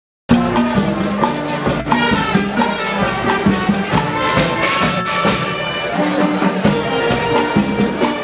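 Music playing, cutting in abruptly after a split second of silence.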